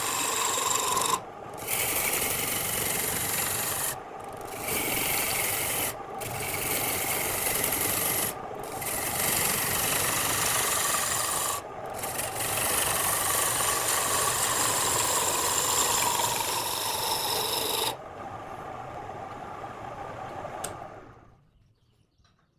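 Turning tool scraping against wood spinning on a lathe, in long passes with brief breaks every few seconds as the tool lifts off. The cutting stops about eighteen seconds in, leaving a quieter sound that fades out a few seconds later.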